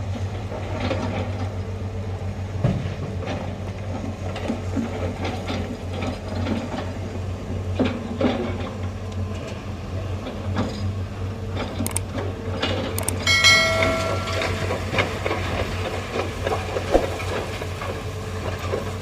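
Heavy diesel machinery at a sand mine running steadily, with irregular metallic clanks and knocks over the engine hum. About thirteen seconds in there is a brief high-pitched tone lasting under a second, such as a squeal or short horn.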